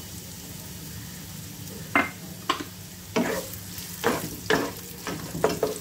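Chopped onions sizzling steadily in hot mustard oil in a wok. From about two seconds in, a wooden spatula stirs them, scraping the pan about twice a second.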